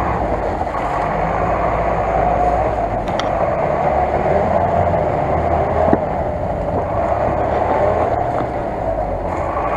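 GAZ-66 truck's engine running steadily under load as the truck drives through deep mud.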